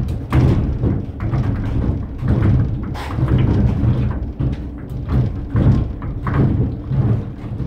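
Wooden windmill machinery running: a low rumble from the turning gear train, with repeated wooden knocks and thuds.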